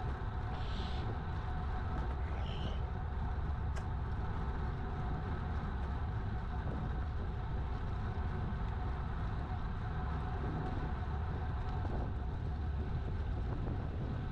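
Steady wind rumble on a GoPro Hero 8's microphone from riding a bicycle, mixed with the hiss of tyres rolling on asphalt.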